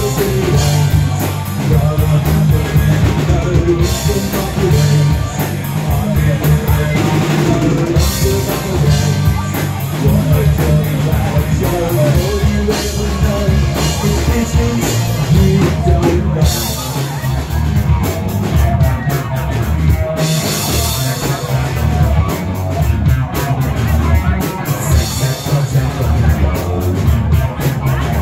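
A live new wave rock band playing, with a drum kit driving the beat over a heavy bass line.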